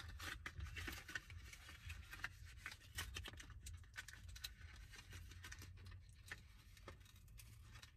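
Faint crinkling and clicking of a phone-grip package's plastic and cardboard being handled and pried open, many small irregular ticks over a steady low hum.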